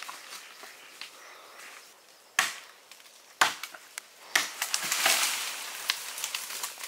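A blade chopping into a wooden tree branch: three sharp chops about a second apart, then crackling and rustling as the branch and its leaves shake.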